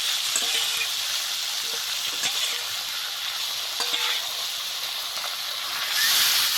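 Marinated chicken pieces sizzling as they fry in hot oil in a kadai, with a few light clicks of a spatula stirring them. The sizzle grows louder near the end.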